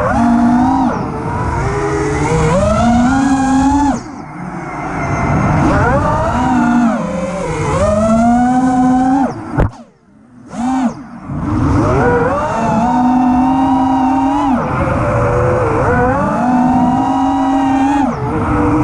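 Brushless motors of a 5-inch FPV quadcopter (T-Motor F60 V3, 2350 kV) whining, the pitch rising and falling constantly with the throttle. About ten seconds in the whine cuts out briefly, about a second, before spooling back up.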